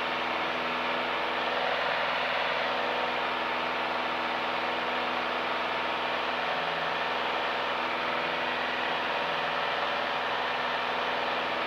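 Piper Cherokee's engine and propeller running steadily in flight, picked up by the pilot's open headset microphone as a loud, even cabin noise.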